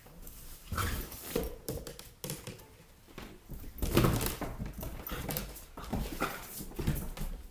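Weimaraner x German shorthaired pointer puppy playing with a balloon: irregular scuffles and knocks with a few short high sounds, loudest about four seconds in.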